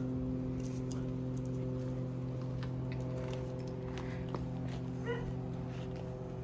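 A dog gives a short run of high whimpering yips about five seconds in, over a steady low hum, with a few faint clicks and scuffs.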